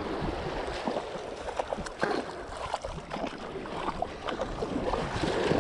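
Shallow surf water sloshing and splashing around the legs, with many small splashes, over a low rumble of wind on the microphone.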